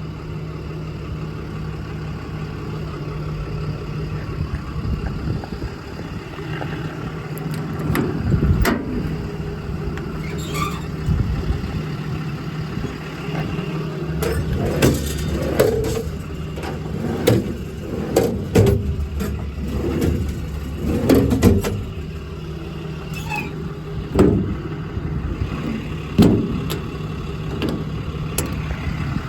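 A 6.7 Cummins diesel idling steadily, with a run of short knocks and clunks from about eight seconds in.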